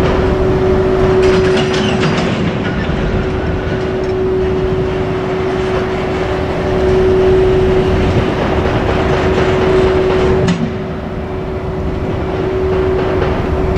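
JR Freight train hauled by an EF81 electric locomotive rolling past, its wheels rumbling and clattering over the rail joints, with a steady tone throughout. The sound drops suddenly about ten and a half seconds in.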